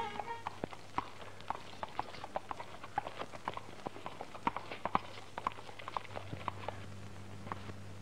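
Horses' hooves clip-clopping at a walk on stone paving: short, uneven hoof strikes, a few a second, stopping about seven and a half seconds in. A steady low hum runs underneath.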